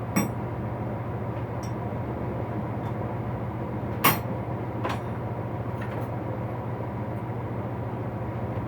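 A few sharp knocks of metal hand tools being handled and set down while a toolbox is sorted, the loudest about four seconds in, over a steady low hum.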